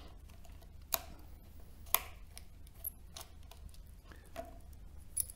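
A handful of sharp, light clicks roughly a second apart as the screws are worked out of a small plastic rotary tool's housing and the parts are handled.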